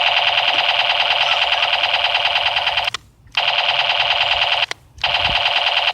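A loud, steady electronic buzz with a fast pulsing rattle in it, like an alarm buzzer. It stops for a moment about three seconds in and again near the end, starting up again each time.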